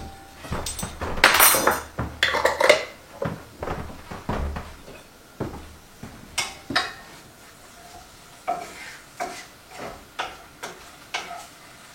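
A metal spoon clinking and scraping in a skillet as minced garlic is added and stirred into frying onions, with a light sizzle underneath. The scraping is busiest in the first few seconds, then thins to scattered taps.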